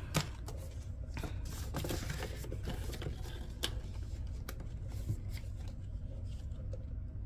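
Paper banknotes rustling and plastic binder pocket pages being handled and turned: a string of soft, scattered rustles and clicks that thins out near the end.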